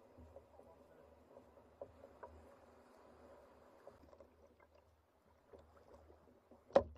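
Faint sloshing of shallow water around an inflatable sailing kayak as it is pushed off the beach and paddled, with scattered small knocks and one louder short sound near the end.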